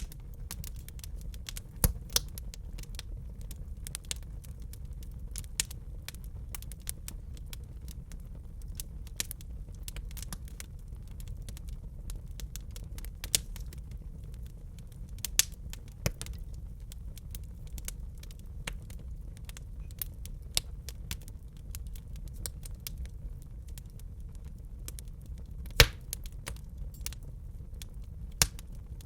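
Wood fire crackling in a fireplace: a steady low rumble under many small snaps, with a few louder pops, the loudest near the end.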